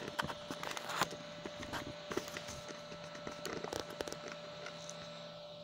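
Scattered small clicks and rustles from a camera being handled against FPV goggles, over a faint steady hum.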